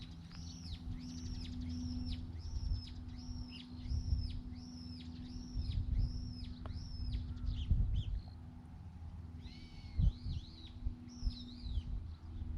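A small bird singing a run of about ten identical high, arched notes, a little over one a second, then a few quicker, more varied chirps near the end, over a low rumble.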